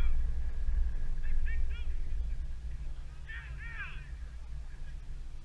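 Wind buffeting the microphone, strongest at first and easing off, with geese honking: a few short calls about a second and a half in, then a burst of overlapping honks from several birds around three and a half seconds.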